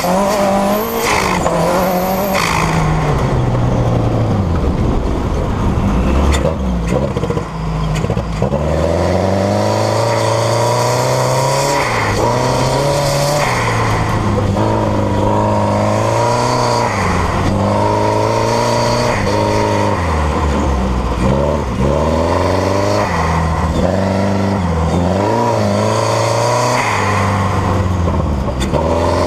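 Subaru EJ207 2.0-litre turbocharged flat-four engine driving a sand rail, revving up and falling back over and over as the throttle is worked.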